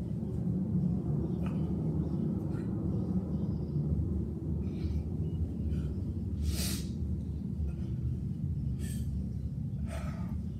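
A man breathing hard from the exertion of push-ups: a few sharp, breathy exhales spaced seconds apart, the strongest about two-thirds of the way through, over a steady low rumble.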